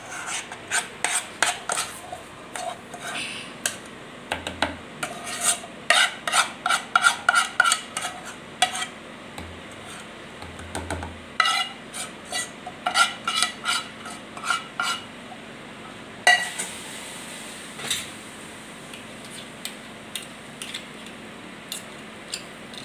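Metal spoon scraping and clinking against a pot and rolling board as hot, sticky peanut-and-sugar chikki mixture is scraped out and spread flat. Quick, irregular scrapes and clicks, several a second, thin out to a few single clicks over the last several seconds.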